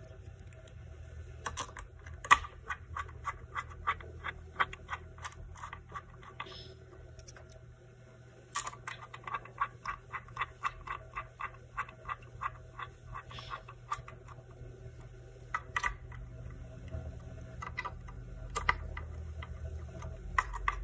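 Screwdriver clicking quickly and evenly, about four clicks a second, in two runs of several seconds each, as the graphics card's heatsink screws are tightened; a few single clicks follow near the end. A low hum runs underneath.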